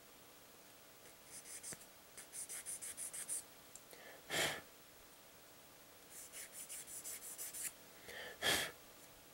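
Runs of rapid, light scratching strokes, about eight a second, on a small plastic model-kit part. A short, sharp puff of breath comes twice, near the middle and near the end.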